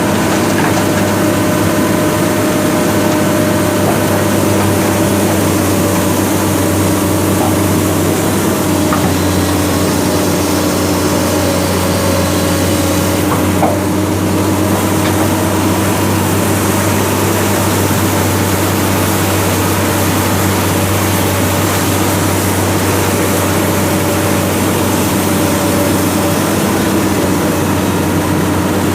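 Heavy machinery engine running steadily: a constant low hum that holds the same pitch, with no revving.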